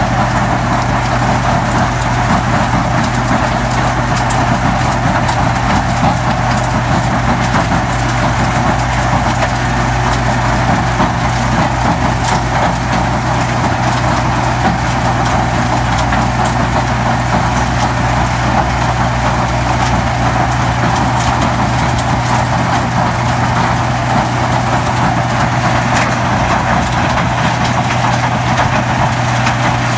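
Rebel Crusher closed-circuit impact crusher running steadily, its engine holding a constant low hum under the noisy clatter of concrete debris being crushed and crushed aggregate pouring off its conveyors.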